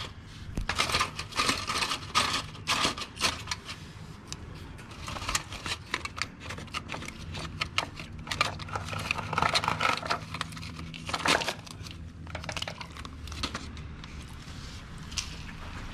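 Aluminium foil crinkling with irregular small clicks and scrapes as a motorcycle oil filter is twisted off by hand against its foil lining and pulled free.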